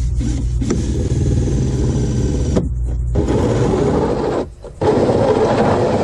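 Drill running a 2-inch hole saw through the wall of a sump basin to cut the pump's discharge hole: a steady motor hum with grinding and scraping from the cut. It stops briefly twice, about halfway through and again past two-thirds.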